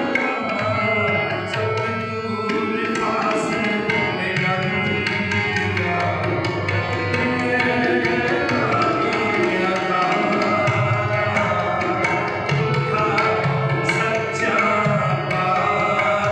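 Gurbani kirtan: harmoniums playing a sustained melody over a steady tabla rhythm, with a singer's voice.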